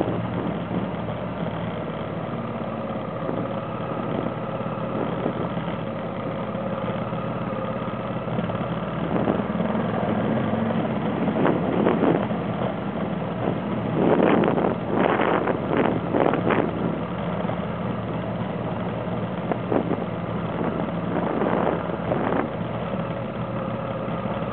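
A vehicle's engine running steadily at low speed while driving a dirt road, with a few short bursts of rough noise about halfway through and again near the end.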